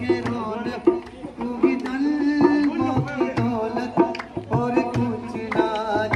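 A man singing a Rajasthani folk song with a wavering, ornamented melody over a steady drum accompaniment.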